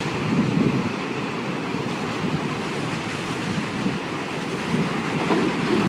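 Rushing, wind-like whoosh sound effect of an animated logo intro, swelling and easing a few times before cutting off abruptly.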